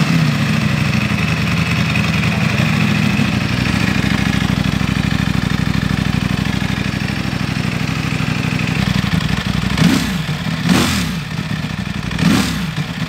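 Brand-new 2023 Ducati Panigale V4 R's 998 cc V4 engine idling just after its first start. There are three short throttle blips near the end.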